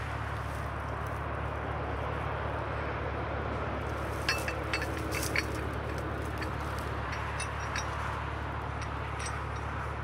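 Steady low hum of an idling engine on the crew's work machinery, with a few sharp snaps, like twigs or branches cracking, about four to five and a half seconds in.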